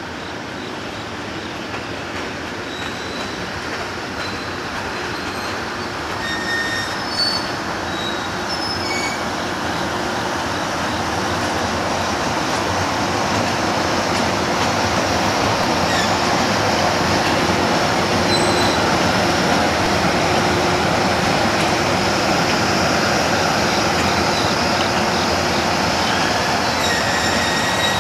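EH200 electric locomotive running light through the freight yard, with a steady rolling rumble that grows louder as it comes closer. Its wheels squeal in short high tones on the curves and points, several times in the first third and again near the end.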